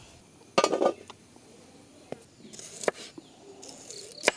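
A kitchen knife cutting bilimbi fruit on a wooden board: a few separate sharp knocks of the blade striking the wood, roughly a second apart, the last the loudest. Birds call in the background.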